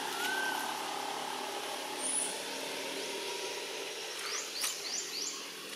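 Outdoor ambience: a steady low engine-like drone, one short whistle-like call at the very start, and a run of four quick rising bird chirps near the end.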